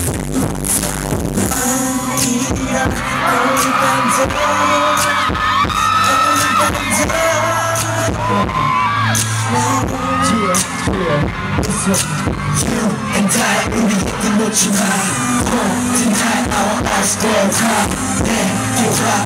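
A male pop group singing live over a loud backing track through concert loudspeakers, heard from among the crowd. The music is so loud that the recording sounds overloaded and poor.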